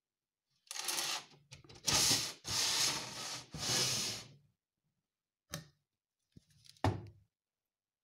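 Scraping and rubbing as a terrarium is opened by hand and its wooden hide box is handled: several long scrapes over about four seconds. Two short knocks follow near the end as the box's wooden lid is lifted.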